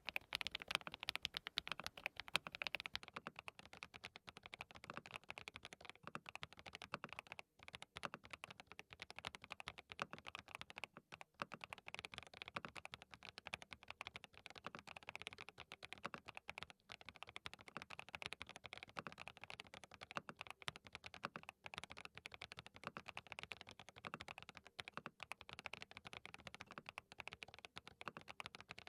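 Fast, continuous typing on a DT35 87-key custom keyboard fitted with hand-lubricated linear switches: a dense run of keystroke clacks with a couple of brief pauses. The first few seconds are HMX Cheese switches; after that it is SWK Toucan switches.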